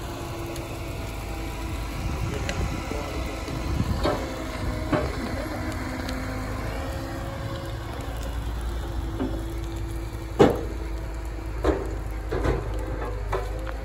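Liebherr excavator's diesel engine running steadily as it works, with several sharp cracks and pops over it, the loudest about ten seconds in.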